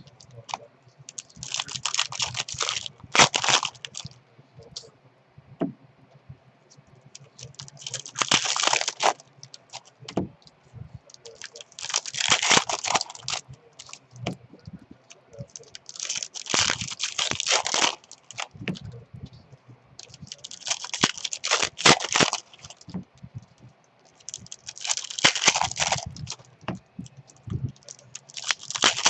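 Foil wrappers of baseball card packs tearing and crinkling as packs are opened one after another, with the cards handled. The crackly noise comes in seven bursts of a second or two each, about every four seconds.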